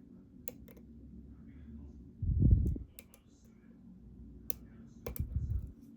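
Lock-picking tools working in the keyway of an EVVA ICS dimple lock, giving scattered sharp clicks. Two low, dull thumps of the lock and tools being handled come about halfway through and near the end.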